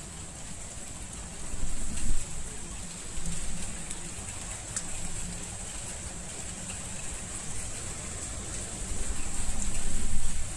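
Steady rain falling, with louder low rumbles swelling about two seconds in and again near the end.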